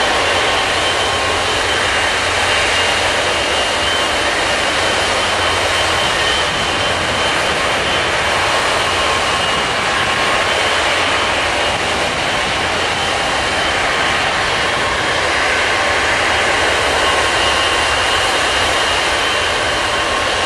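Steady jet engine noise on an airport ramp: an even roar with a thin high whine running through it, unchanging throughout.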